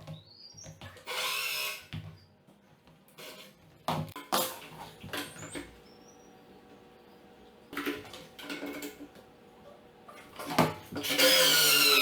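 Drill with a hole saw cutting into a wooden door: a short burst about a second in, then clicks and knocks as the saw and guide board are handled, and a longer cutting run near the end.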